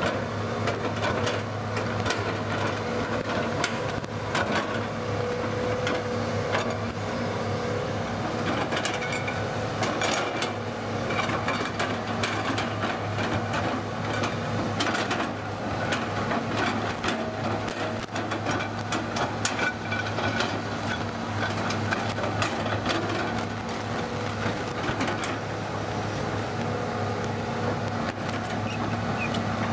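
Hitachi hydraulic crawler excavator's diesel engine running at a steady pitch while it digs, with frequent short knocks and clanks from the bucket and arm working the soil.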